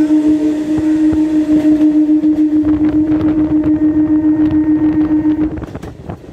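Electric multiple unit local train running at speed: a steady electric hum with a regular throb over the rumble of the wheels on the rails. The hum cuts off about five and a half seconds in, leaving a quieter rumble.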